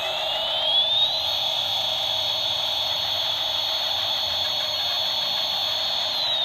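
Toy airplane's whine, rising in pitch, holding a steady high tone, then falling away near the end, over a steady lower hum.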